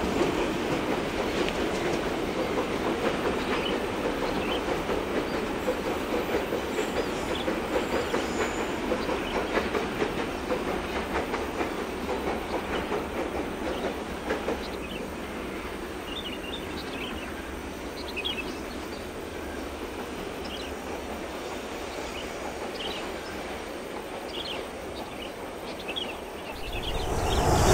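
Empty coal hopper wagons of a long Babaranjang coal train rolling over the rails with a steady wheel clatter and rumble that slowly fades as the end of the train moves away around the curve.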